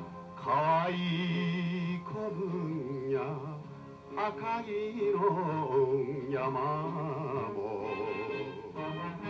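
A man singing a Japanese song into a microphone with instrumental accompaniment, holding long notes with vibrato.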